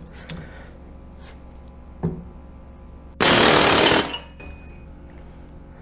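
Snap-on Super Duty pneumatic air hammer firing in one loud burst of rapid blows, a little under a second long, about three seconds in, its bit hammering the front of an off-road LED pod light and breaking the lens. Two light knocks come before it.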